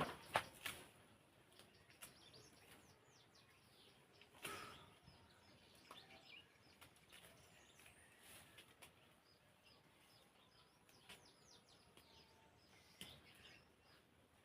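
Faint birds chirping, short quick high calls scattered throughout, with a few soft rustles or knocks near the start, about four seconds in and near the end.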